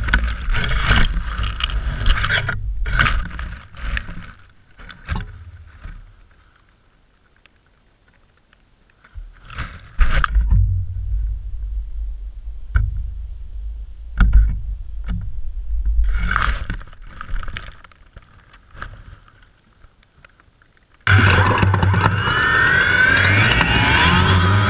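Camera housing rubbing and knocking through dry grass, heard as irregular scraping bursts with a heavy low rumble. About 21 seconds in, a loud steady sound with a wavering pitch starts abruptly and keeps going.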